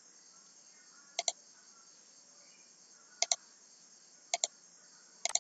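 Crickets chirping steadily in the background, broken by four quick double clicks, about a second or two apart.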